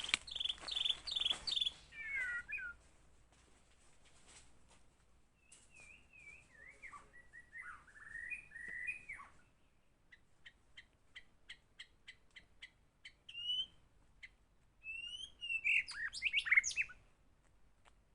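White-rumped shama singing: varied phrases of slurred, sweeping whistles separated by pauses, with a run of quick clipped notes about ten seconds in and a loud burst of phrases near the end.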